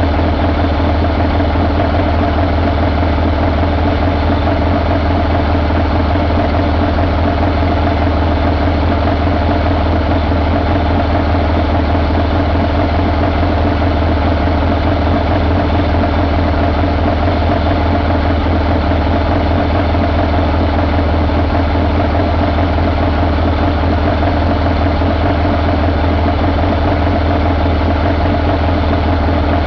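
A 2015 Paccar PX-7 6.7-litre inline-six diesel engine idling steadily on a run stand. Its speed and level stay even throughout.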